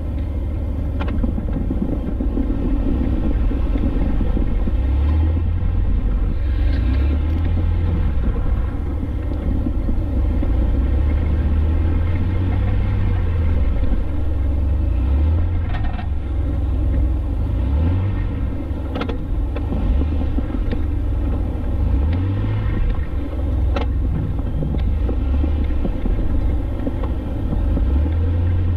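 Jeep Wrangler driving, with a steady low engine and road rumble and a few light knocks along the way.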